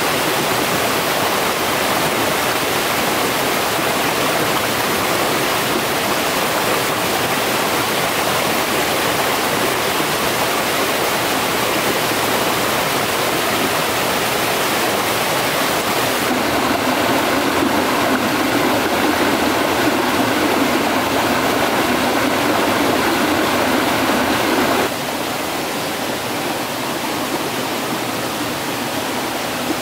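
Stream water rushing steadily. About 16 seconds in the rush turns abruptly deeper, and about 25 seconds in it drops a little in level.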